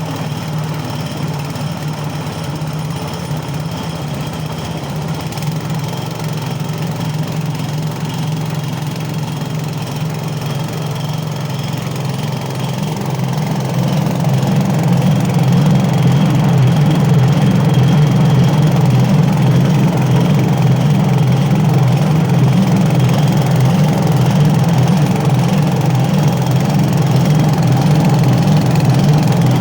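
Small 7 hp single-cylinder petrol engine running steadily, driving a walnut-hulling drum through a reduction gearbox; it gets louder about halfway through and holds there.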